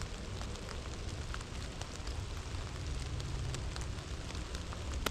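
Steady rain falling, with many small drops ticking irregularly over an even hiss and a low rumble underneath.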